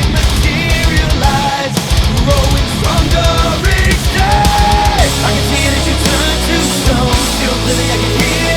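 Loud heavy rock music playing continuously.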